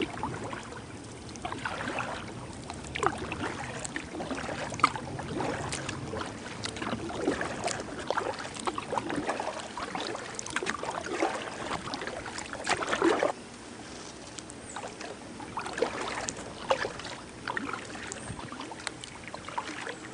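Kayak paddling: the paddle blades dip and splash in the river at an irregular pace of about one stroke a second, with drips and small knocks against the boat. The splashing eases a little past halfway.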